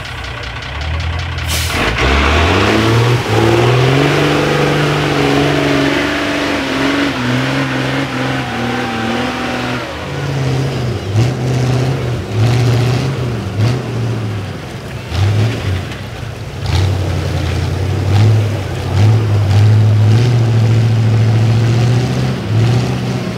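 Off-road trial truck's diesel engine working hard through deep mud and water, its revs climbing about two seconds in and held high, then rising and falling over and over in the second half.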